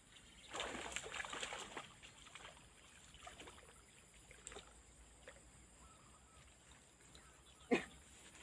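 Water splashing, followed by scattered light clicks and one short, louder knock near the end.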